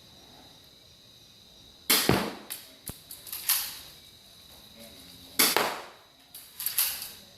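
Spring-action airsoft pistol firing twice, about three and a half seconds apart, each sharp snap followed by a few softer clicks.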